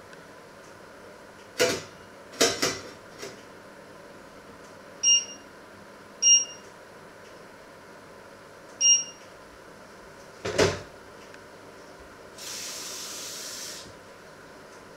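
Stainless steel pots and lids clattering on a stovetop, with three short, high electronic beeps in between and a steady hiss of about a second near the end.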